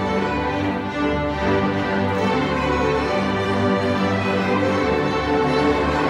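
Junior high orchestra of violins, cellos and double basses playing together, bowing held notes over a strong bass line.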